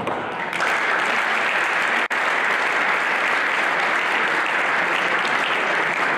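Spectators applauding steadily, clapping with no pauses, with a brief dropout about two seconds in.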